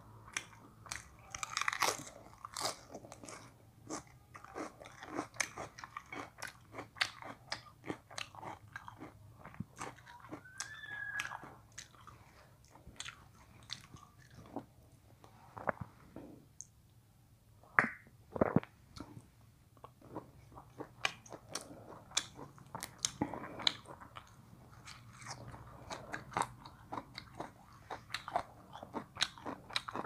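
Close-miked chewing and crunching of crisp raw lettuce leaves and fresh herbs in a wrap, with irregular wet mouth clicks, easing off briefly about halfway through.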